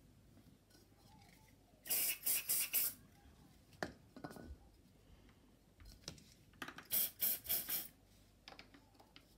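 Aerosol can of silicone spray lubricant squirted in short hissing bursts: about four quick squirts around two seconds in and four more around seven seconds in, lubricating the plastic parts of a stroller's brake pedal mechanism. A couple of light clicks fall between the two sets.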